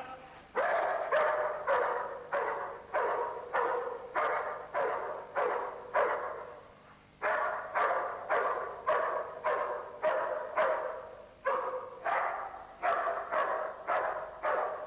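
A dog barking steadily, about two barks a second, in three long runs broken by two short pauses.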